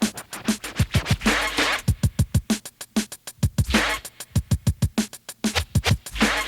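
Instrumental 1980s hip hop drum machine beat: fast, even hi-hat ticks over deep, booming pitched kick drums, with a longer noisy hit about every two and a half seconds.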